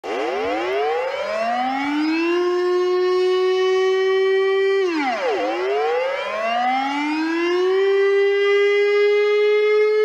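Civil defense siren winding up in pitch over about two seconds to a steady tone and holding it, dropping sharply about five seconds in, then winding up again to a slightly higher steady tone that it holds to the end.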